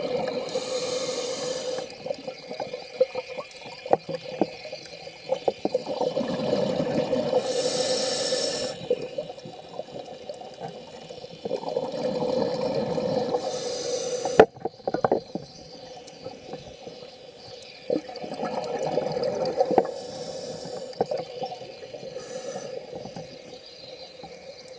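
Scuba diver breathing through a regulator, in slow repeated breaths: a hiss on each inhale, then a burble of exhaled bubbles. Scattered sharp clicks sound in between.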